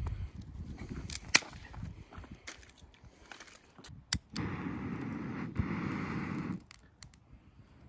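Sharp wooden knocks and cracks of firewood being tossed into a dug pit, the loudest about a second and a half in and another just after four seconds. From about four and a half to six and a half seconds there is a stretch of steady rushing noise.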